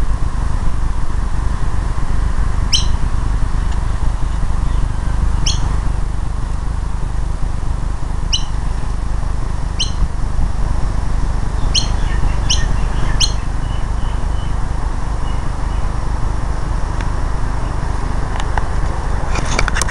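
Short, high bird chirps, about seven of them spread over the first two-thirds, above a steady low rumble.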